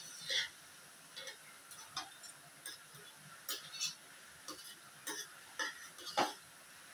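Metal ladle scraping and clinking inside a frying pan as sauce is scooped out: a string of short, irregular scrapes and clinks, the loudest about six seconds in.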